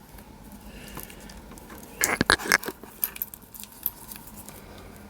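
Hand unwrapping packaging: a quick cluster of sharp clicks and rattles about two seconds in, with a few lighter ticks and faint rustling around it.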